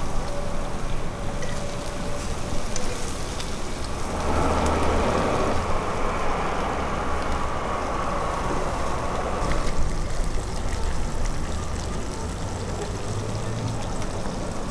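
Meat sizzling on an open grill over flame, a steady crackling hiss that grows stronger for several seconds in the middle.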